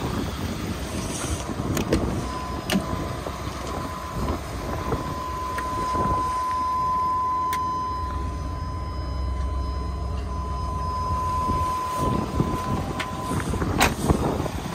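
A steady warning tone from the dashboard of a Chevrolet pickup sounds for about ten seconds, with the sharp clicks and knocks of doors and handling in the cab. A low rumble runs underneath.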